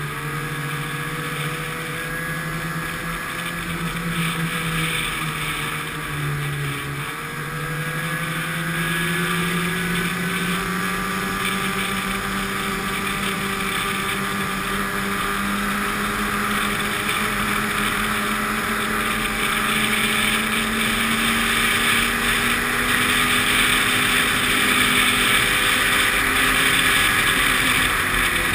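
Snowmobile engine running steadily at cruising speed, its pitch dipping briefly about six seconds in as the rider eases off, then climbing slowly as it speeds up again, with a steady rushing noise over it.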